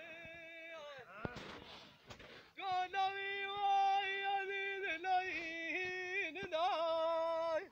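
A man's unaccompanied voice singing a Punjabi dhola: short phrases, then one long high held note from about two and a half seconds in, with a few brief wavers near its end.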